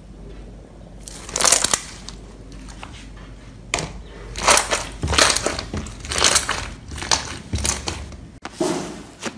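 Blue slime, full of air pockets from being pressed through a wire grill rack, squished and pressed by hand: a run of loud crackling, popping squelches that starts about a second in.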